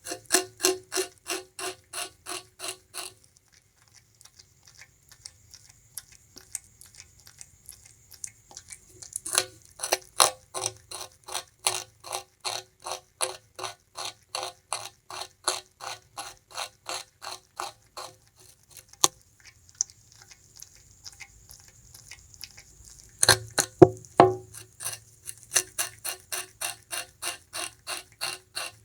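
Bamboo rat gnawing and chewing sugarcane: runs of crisp crunches at about three a second, with quieter chewing between the runs and a few louder cracking bites about two-thirds of the way through.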